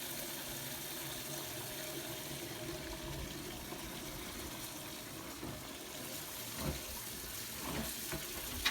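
Sheep's milk running steadily into a jug, a continuous liquid splashing and filling sound, with a few faint knocks near the end.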